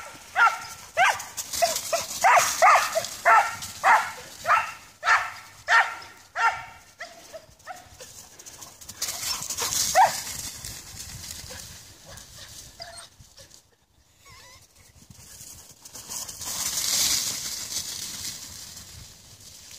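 A dog giving quick, repeated chase barks while running, about two barks a second, which stop about eight seconds in apart from one more bark a couple of seconds later. After that, dry leaves rustle under running paws.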